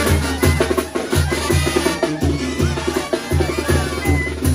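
A live Mexican banda playing: brass and clarinets carry the tune over a steady low pulse from tuba and bass drum, about three beats a second, with snare and timbal drums and cymbal.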